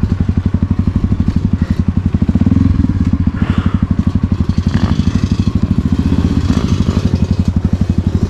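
Motorcycle engine running at low speed with an even, rapid chug of about a dozen pulses a second, picking up briefly about two and a half seconds in and again around six seconds.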